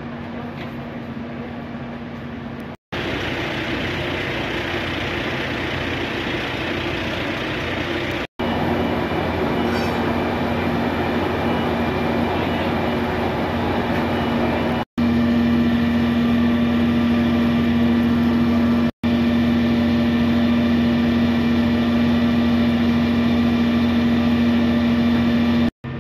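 Fire engine running steadily with a constant low hum, heard in several short clips joined by abrupt cuts. It is loudest in the second half.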